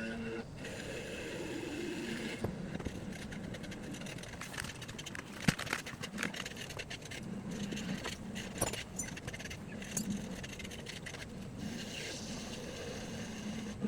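Clinks, knocks and scrapes of metal hand tools and parts being handled during the mower teardown, irregular, with one sharp clink about five and a half seconds in.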